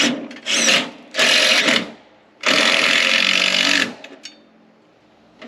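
Power drill driving screws into wood, about four runs of the motor in short and longer pulls, the longest about a second and a half, as gutter brackets are screwed into the fascia board.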